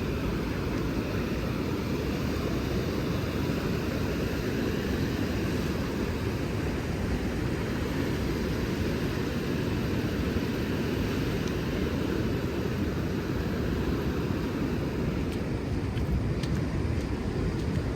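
Steady low rumbling noise of wind on the microphone and ocean surf, unbroken and even in level.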